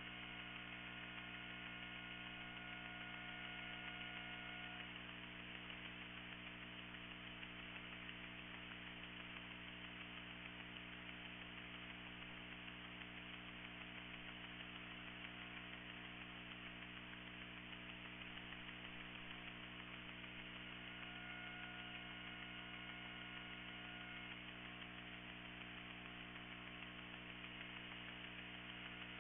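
Dead air on a NOAA Weather Radio broadcast after the test tornado warning cuts off mid-sentence: a faint, steady electrical hum with its many overtones under a low hiss, and no program audio.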